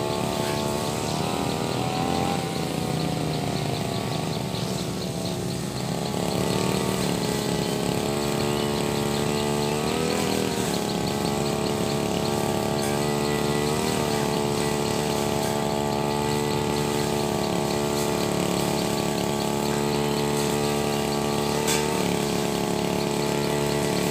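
Brush cutter engine running steadily while cutting thick grass, its pitch briefly rising and dipping a few times as the blade works through the growth.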